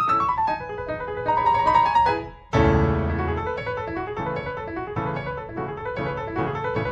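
Background piano music. It breaks off briefly about two and a half seconds in, then resumes with a loud chord.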